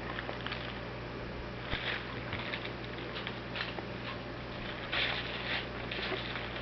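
Mylar crinkle ball crinkling in short, irregular bursts as a cat plays with it, the loudest burst about five seconds in, with a few light taps between.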